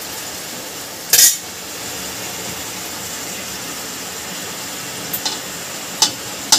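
Murukku dough deep-frying in hot oil in a metal kadai: a steady frothy sizzle, with the oil still bubbling hard, which is the sign the murukku is not yet cooked through. A loud metal clank comes about a second in, and lighter clinks come near the end, as a slotted steel spoon touches the pan.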